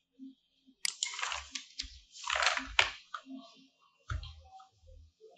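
Faint desk noises from a computer mouse: short clicks and scroll-wheel rolling, mixed with a few brief scraping rustles.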